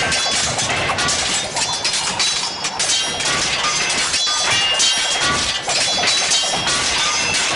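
Cartoon soundtrack: busy music mixed with crashing and shattering sound effects.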